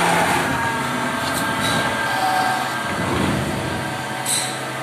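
CNC lathe running its automatic cycle on a 12 mm steel rod, with the tool cutting the workpiece: a steady machining noise with faint whining tones, and a brief higher-pitched scrape about four seconds in.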